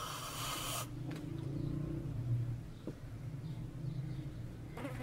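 A man slurping hot tea from a cup for about the first second, then a low steady hum.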